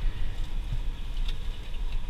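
Low, steady rumble of a coach's idling engine, heard from inside the bus cabin.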